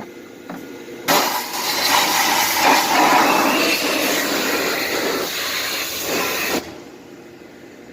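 Pressure washer spraying water in one burst of about five and a half seconds: a loud hiss that starts suddenly about a second in and cuts off suddenly near the end.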